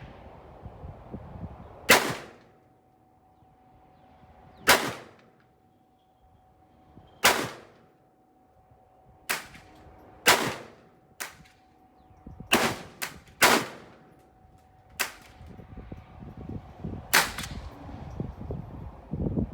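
AR-15-style rifle fired in single shots, about a dozen sharp cracks spaced roughly one to three seconds apart, each followed by a short echo. Some shots are noticeably quieter than others.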